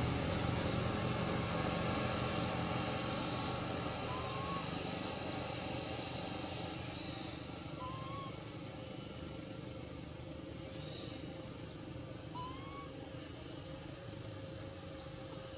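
A motor vehicle's engine hum, loudest at the start and slowly fading away, with three short rising chirps spaced a few seconds apart.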